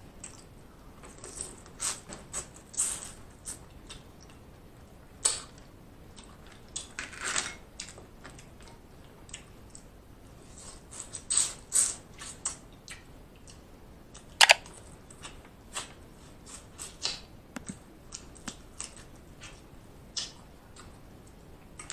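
Close-miked eating sounds: wet smacking and chewing on shrimp and snow crab, in irregular clicks and smacks, with one sharper, louder smack about two-thirds of the way through.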